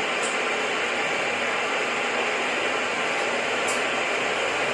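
Steady hiss, with two faint brief ticks, one about a quarter second in and one near the end.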